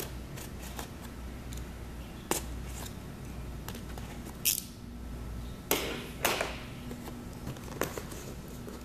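A metal blade slitting the paper seal sticker on a small cardboard processor box, heard as a series of short, scattered scrapes and clicks, with the box handled in the hands between them.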